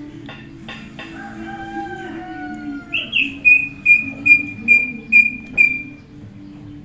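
Hill myna calling. A few sharp clicks lead into a long, falling whistle, then a rapid run of short, loud whistled notes, about two a second, that stops about a second before the end.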